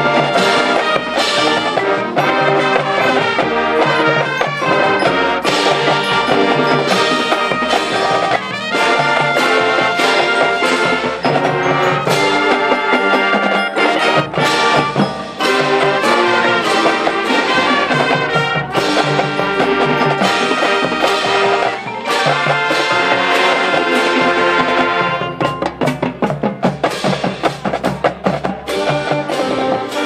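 High school marching band playing its field show: brass with marching and front-ensemble percussion, loud and continuous. Near the end the music breaks into a run of short, punched hits.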